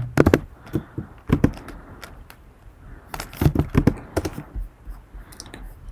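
Typing on a computer keyboard: scattered key clicks in short runs, with a pause of about a second partway through.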